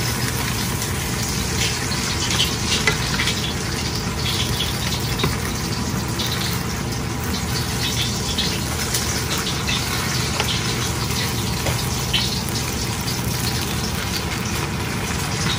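Mixed fried rice sizzling steadily in a hot pan, with scattered small crackles, over a steady low hum.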